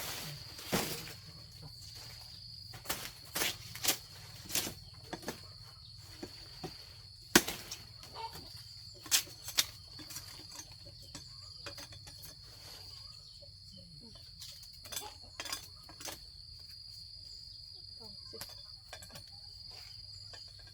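Blade chopping sugarcane stalks: irregular sharp strikes, clustered in the first half and loudest about seven and nine seconds in. A steady high insect drone runs underneath.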